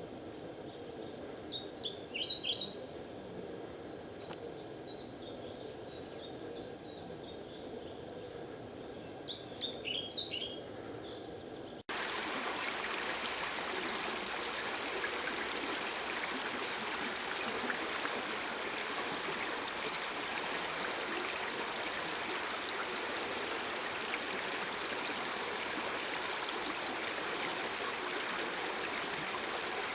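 A songbird sings two short phrases of quick high notes several seconds apart over faint background noise. About twelve seconds in the sound cuts to a steady rush of flowing floodwater.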